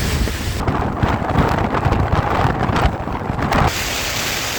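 Stormy wind and rain, with gusts buffeting the microphone as a heavy low rumble. A rougher, duller stretch runs from about half a second in to near the end.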